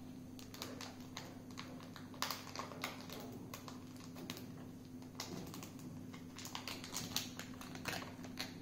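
Hands working a paper cup down inside a cloth sock over a steel plate: irregular light clicks and crinkles.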